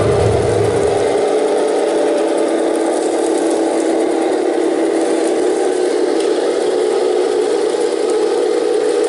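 Tamiya 1/16 radio-controlled Centurion tank driving, with a steady mechanical hum from the model as it runs.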